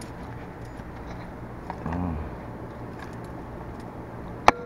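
Steady low hum inside a parked car's cabin. A short rising-and-falling sound comes about two seconds in, and near the end a single sharp click, the loudest sound, is followed by a faint steady tone.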